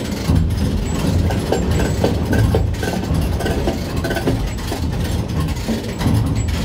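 Heavy machinery running steadily with a low engine rumble.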